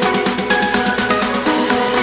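Background electronic dance music with a fast, steady beat and a repeating synth melody.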